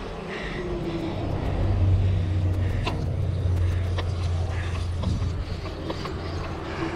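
A motor vehicle's engine running as a steady low hum that grows louder over the first couple of seconds and eases off after about five, with a few sharp clicks over it.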